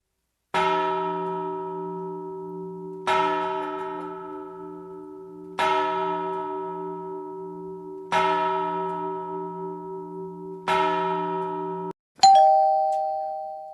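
A large, low-pitched bell tolls five times, evenly about two and a half seconds apart, each stroke ringing on with a wavering hum. The tolling is cut off and replaced by a brighter two-note ding-dong chime, like a doorbell, which rings out and fades.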